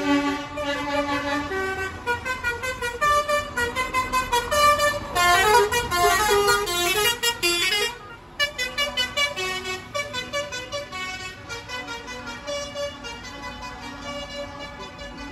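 A loud tune of pitched notes stepping up and down over a quick pulsing beat, blaring from passing decorated parade lorries and vehicles, with horn-like tones. It drops out briefly about eight seconds in, then carries on quieter.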